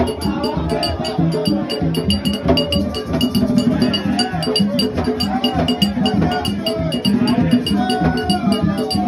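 Percussion-driven music: drums with a fast, even metallic clinking beat, and voices singing over it.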